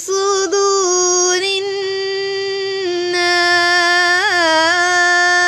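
A woman's voice chanting a Quran verse in melodic tajweed recitation ('fi suduri an-nas'). She draws the words out into long, steady held notes, with a short wavering ornament about four seconds in.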